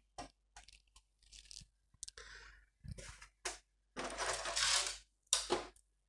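Cables and plastic connectors being handled and routed while wiring up a PC, with rustling and crinkling and a few small clicks; the longest rustle comes about four seconds in and lasts about a second.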